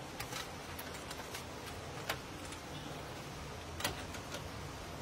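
Keys clicking in the lock of a metal-framed glass door as it is unlocked: a handful of sharp, irregular clicks over a steady background hiss.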